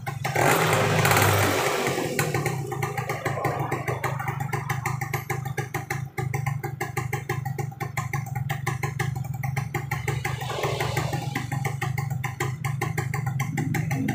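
Yamaha Mio scooter's single-cylinder engine running with an even, rapid firing pulse. It is revved up briefly about half a second in and again around ten seconds in.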